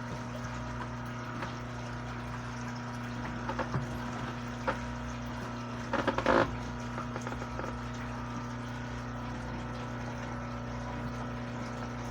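Steady electrical hum from a motor or appliance, with a few brief handling clatters and rustles; the loudest comes about six seconds in.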